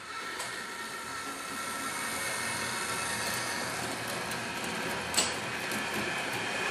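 H0-scale Trix Express model trains running: a steady whirr of small electric locomotive motors and wheels rolling on the track, growing louder as a train passes close, with a single sharp click about five seconds in.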